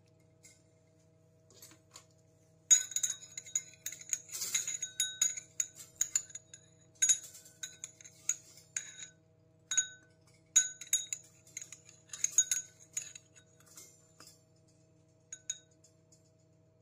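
Metal fork clinking and scraping against a white ceramic bowl of melted chocolate as a sesame cookie is dipped and turned. A rapid, irregular run of clinks, each ringing briefly, starts about three seconds in and thins out after about thirteen seconds, with two last clinks near the end.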